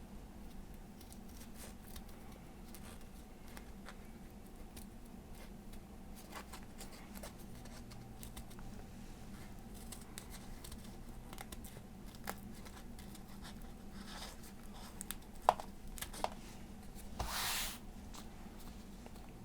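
Titanium-coated scissors snipping through folded copier paper, with faint small clicks and paper rustling. Two sharper snips come a little after the middle, followed by a short, louder paper rustle near the end.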